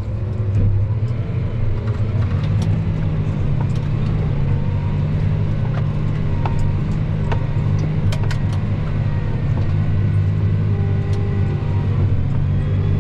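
Tractor engine working steadily under load while pulling a field cultivator, with power back after a restart; it builds up about a second in, with a few light clicks over the running.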